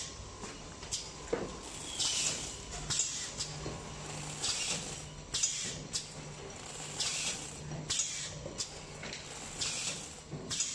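Fully automatic film wrapping and shrinking machine running. Short hisses of air come in pairs about every two and a half seconds as its pneumatic sealing section cycles, over a steady low hum.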